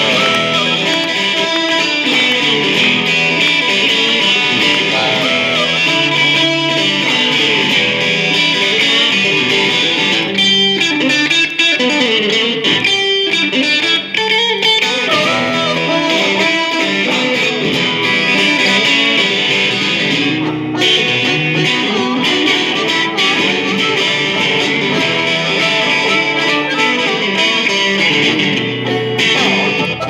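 Live blues played on an electric guitar through an amplifier, with a harmonica playing over it.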